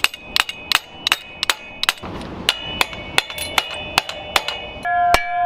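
Rapid hammer blows on the metal crank and bottom bracket of a BMX bike, about three strikes a second, each ringing with a high metallic tone. Near the end the ringing drops to a lower pitch as the strikes land on a different part.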